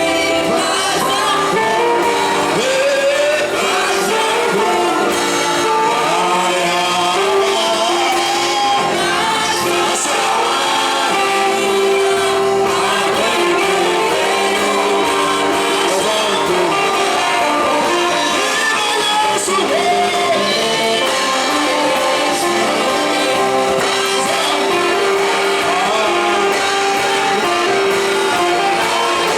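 Worship music: voices singing over steady instrumental accompaniment, with no break.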